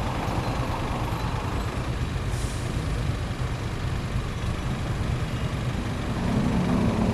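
Motor vehicle engine idling, a steady low rumble. A louder pitched sound comes in near the end.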